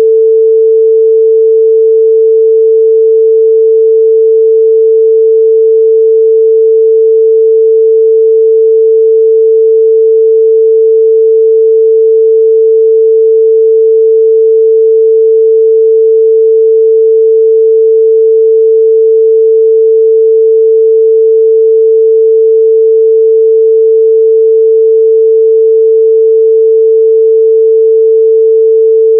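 Steady, loud 445 Hz sine-wave test tone, one pure unchanging pitch with no other sound.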